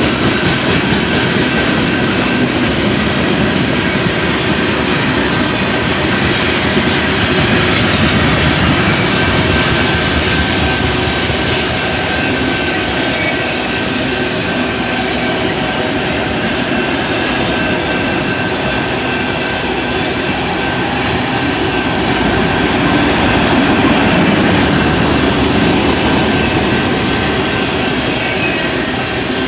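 Steel wheels of a long CSX freight train's cars rolling past at close range, a loud steady rumble and rattle with irregular clicks from rail joints. A thin, steady high wheel squeal runs over it.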